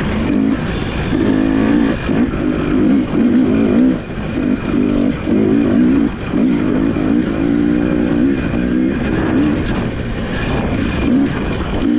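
Off-road motorcycle engine revving up and down again and again, its pitch rising and dropping with the throttle.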